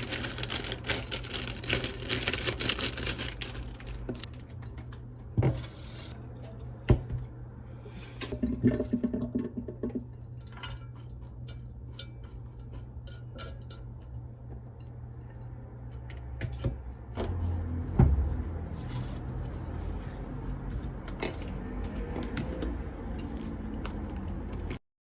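Water running from a kitchen tap for the first few seconds, then scattered clinks and knocks of kitchen utensils and dishes over a steady low hum.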